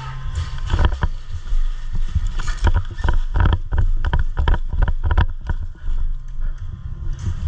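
A rapid, irregular run of knocks and thumps, over low rumbling from a jostled microphone, densest in the middle stretch.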